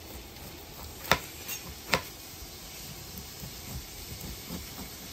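A chef's knife cutting a pineapple on a cutting board, with two sharp knocks a little under a second apart as the blade meets the board, then quieter scraping of the blade through the rind. A faint steady hiss runs underneath.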